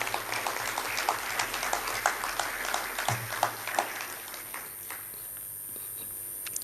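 Audience applauding: many hands clapping together, which thins out and stops about five seconds in.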